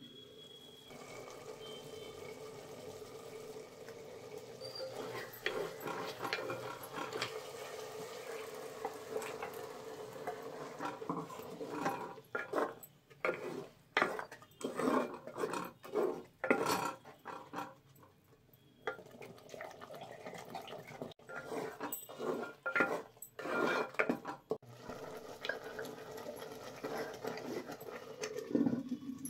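Clay cooking pot being handled: the terracotta lid scrapes and knocks as it is lifted and set back over a thick green chicken curry. A string of sharp knocks and clatters in the middle, the loudest sounds, fits stirring in the pot. A steady hum runs underneath.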